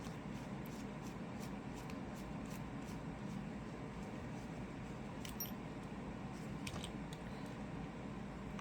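A few faint, small metallic clicks from lock pins and tweezers being handled while the Medeco Biaxial euro cylinder is taken apart, mostly in the second half, over a low steady room hum.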